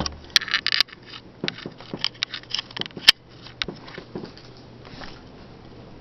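Seagull Lighting Main Street ceiling fan running with a steady low motor hum. A run of irregular sharp clicks and rustles sounds over the first four seconds or so.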